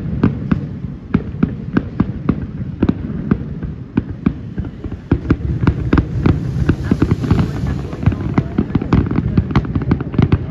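Fireworks grand finale: a rapid, dense barrage of shell bursts and crackling reports, several a second, over a continuous low rumble.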